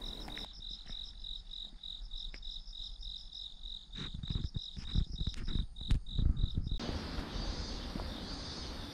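A cricket chirping in even pulses, about four a second, with a few soft footsteps in the middle. Near the end the chirping cuts off abruptly and gives way to a steady outdoor hiss.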